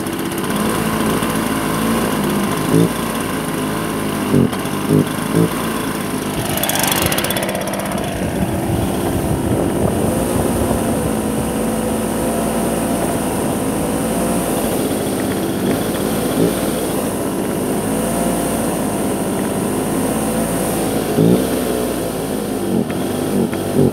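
Stihl BR 430 backpack blower's two-stroke engine running unevenly, its pitch wavering up and down, with a brief rev about seven seconds in. It will not rev up freely because of a clogged muffler screen.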